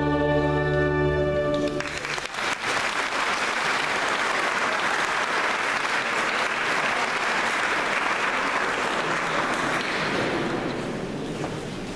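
A choir's held final chord ends about a second and a half in, and audience applause follows, dying away near the end.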